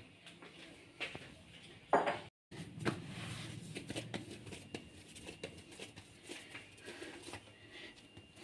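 Hands pressing and kneading risen bread dough on a countertop: soft, irregular pats and rubbing, with a few light knocks in the first three seconds.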